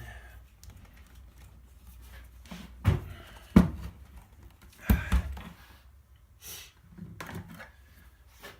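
Tools and sander parts handled and knocked on a work surface: a few soft rustles and clatters, with four sharp knocks a little after the middle.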